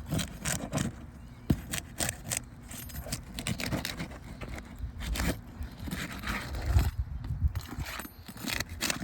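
Asphalt roof shingles being pried loose from their sealant strips: an irregular run of sharp cracks, ticks and scrapes as the seals break.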